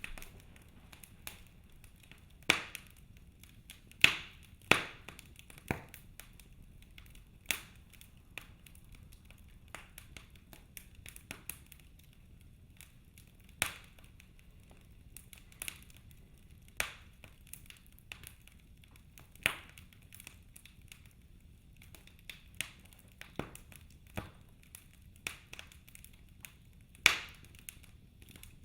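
Wood fire in a fireplace crackling, with sharp pops and snaps at irregular intervals, a few seconds apart, over a faint steady crackle.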